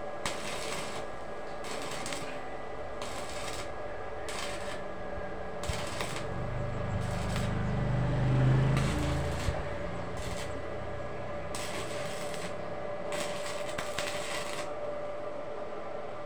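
Stick welding with a small inverter arc welder on steel square bar: the electrode arc crackles and sizzles in about a dozen short bursts, each under a second, with pauses between them. A low rumble swells and fades in the middle.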